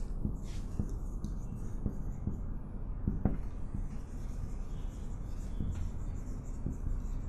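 Marker pen scratching and squeaking on a whiteboard as words are written, stroke by stroke, over a steady low hum.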